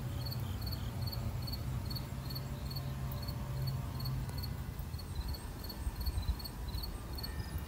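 Cricket chirping in a steady, even rhythm, about three short high chirps a second, over a low steady hum.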